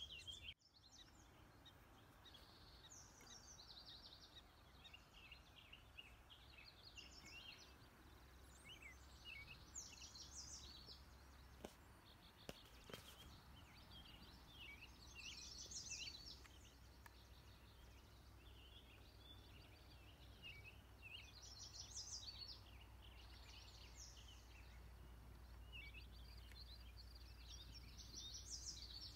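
Faint birdsong: several songbirds chirping and singing, one song phrase coming back about every six seconds, over a low steady rumble.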